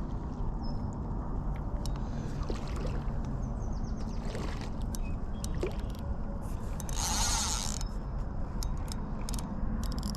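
Wind rumbling on the microphone, with scattered light clicks and a brief hiss about seven seconds in.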